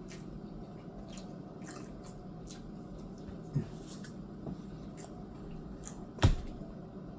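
A person chewing food, with scattered small wet mouth clicks and two dull thumps, the louder one near the end.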